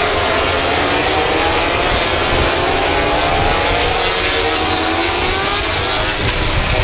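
A group of 1000 cc four-cylinder MotoGP racing motorcycles running around the circuit at race speed. Several engine notes overlap, rising and falling as the bikes accelerate and brake, over a low rumble.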